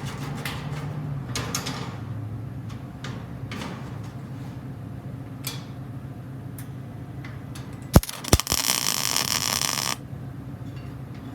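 Light clicks and scrapes of metal being handled over a steady low hum, then about eight seconds in two sharp cracks as a welding arc strikes, followed by the arc's loud crackling buzz for under two seconds that cuts off suddenly.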